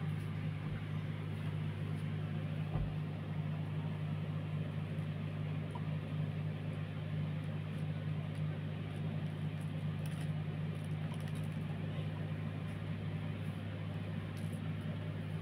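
Sewing machine running steadily as cloth is fed through it, a constant low hum.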